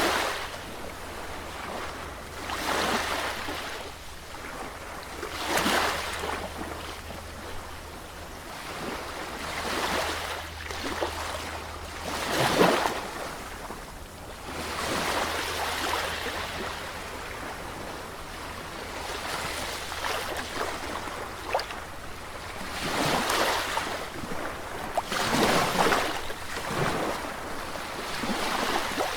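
Sea waves surging in one after another, each wash swelling and fading every few seconds, over a steady low rumble.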